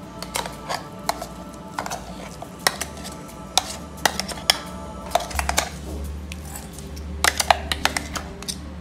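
Metal clinks and scrapes as thick ground masala paste is worked out of a stainless-steel mixer-grinder jar into a bowl: irregular sharp knocks, some with a brief metallic ring.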